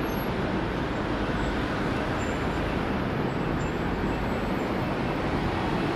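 Steady road traffic noise: a constant low rumble and hiss with no separate events standing out.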